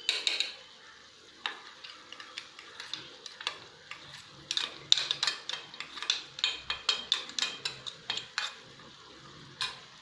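A spoon stirring chicken and spices in a frying pan, scraping and knocking against the pan in quick irregular strokes, with frying sizzle underneath.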